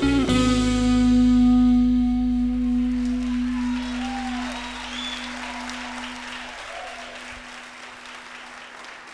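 A live band's final chord ringing out and slowly fading, the bass note cutting off a few seconds before the end, while the audience applauds and cheers.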